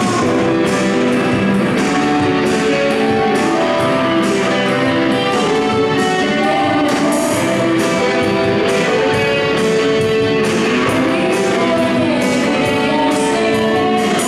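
Live rock band playing: electric guitars and electric bass over a drum kit, with steady cymbal strokes about twice a second under sustained held notes.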